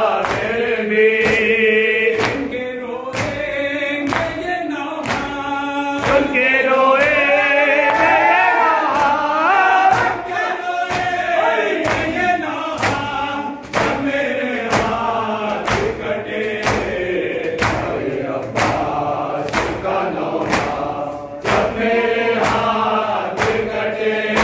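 Men's voices singing an Urdu Shia nauha (lament) together, with the crowd's hand strikes on their chests (matam) keeping a steady beat a little faster than once a second.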